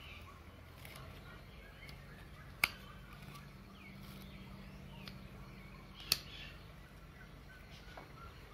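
Two sharp clicks a few seconds apart: the blades of forged slipjoint pocketknives snapping into the open position against their backsprings.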